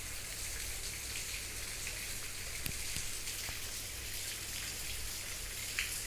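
Steady, even hiss of background noise over a low hum, with a few faint ticks.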